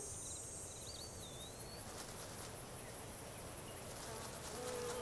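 Insects trilling steadily at a high pitch in a fast, even pulse, with a short whistle that rises and falls about a second in.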